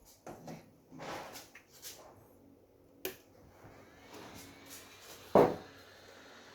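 Bench work on a circuit board: scattered clicks and light scrapes of hand tools, with one loud knock a little past five seconds in.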